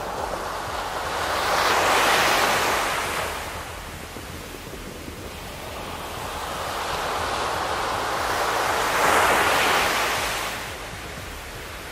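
Small sea waves breaking and washing up a sandy beach. The surf swells twice, about two seconds in and again around nine seconds, and eases between.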